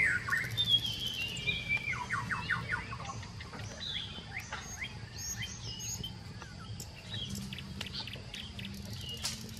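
Several birds chirping and calling: short whistled notes, quick glides and rapid trills, busiest in the first few seconds and sparser after, with a few faint crackles from the wood campfire.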